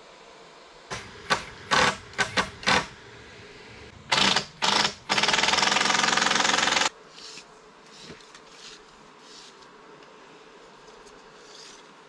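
Handheld power driver run in a series of short bursts, then held for one continuous run of about two seconds, with a fast rattling rhythm. Faint small clicks and knocks follow.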